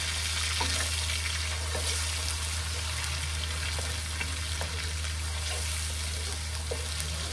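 Onions, ginger-garlic paste and green chillies sizzling steadily in hot oil in a wok, being sautéed and stirred with a wooden spatula that scrapes and taps the pan now and then. A steady low hum runs underneath.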